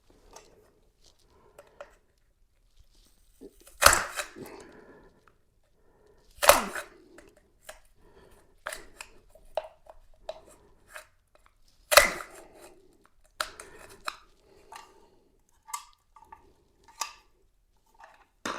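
Hand-tool work on an outlet box: irregular light clicks and knocks, with three louder sharp strikes about four, six and a half and twelve seconds in, as a hole is popped through.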